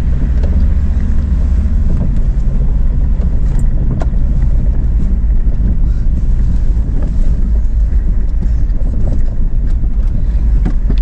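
Jeep driving over a rough dirt track: a steady, loud low engine rumble with a few brief knocks and rattles from the vehicle.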